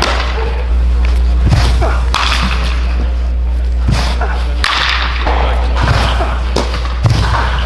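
Baseball live batting practice: several sharp cracks, a second or more apart, of a bat meeting the ball and the ball popping into a catcher's mitt, over a steady low hum.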